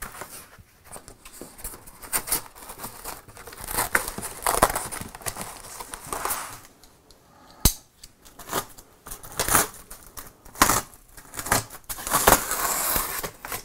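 Styrofoam packing blocks and cardboard box scraping and rustling as a plastic-wrapped oven in its foam is slid out of the box, with plastic crinkling, scattered clicks and a sharp knock midway.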